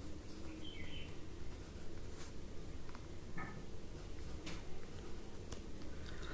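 Pencil writing on paper: faint scratches and light taps of the pencil tip as short letters are written. Two brief faint high chirps come through, one under a second in and one about three seconds in.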